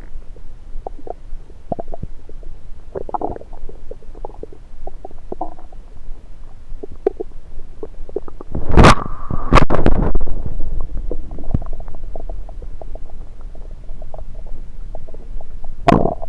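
Stomach and intestinal gurgling heard through a stethoscope pressed on the belly: scattered short gurgles and bubbling, with a louder, longer gurgle with a squeaky tone a little past the middle and another sharp burst near the end.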